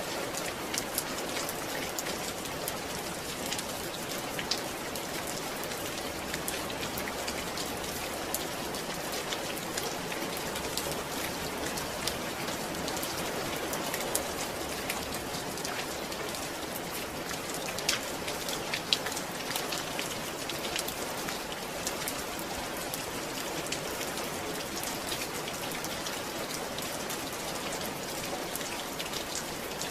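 Steady rain falling, an even hiss with many small drop ticks, a few louder drops about two-thirds of the way through.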